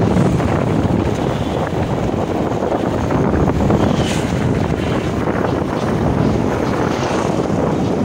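Steady wind buffeting the microphone on a moving motorcycle, mixed with the rushing noise of the ride.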